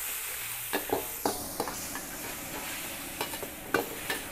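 A metal ladle stirring chicken in a steel wok, with repeated sharp clinks and scrapes against the wok. Under it the sauce sizzles steadily.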